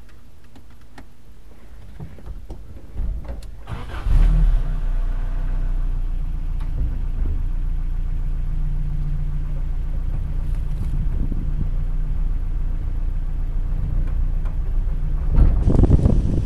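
Small clicks and rattles for about three seconds, then the 1987 Toyota pickup's engine starts about four seconds in and runs steadily, heard from inside the cab. In the last second a louder rush of wind and wheel noise takes over.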